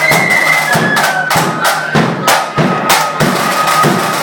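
Flute band playing a march: several flutes carry a high melody over heavy drum beats in an even rhythm.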